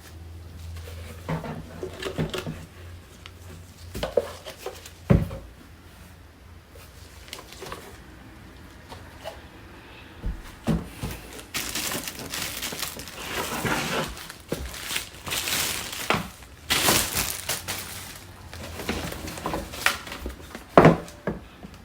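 Packaging and plastic blender parts being handled: rustling and crinkling of wrapping, with scattered knocks and clatter. The sharpest knocks come about five seconds in and near the end.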